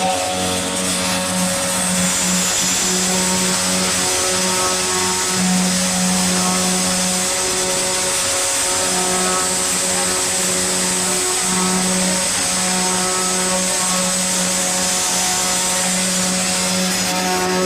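Concreting machinery running steadily: a constant motor hum with a held mid-low tone that drops out for moments now and then, over an even high hiss.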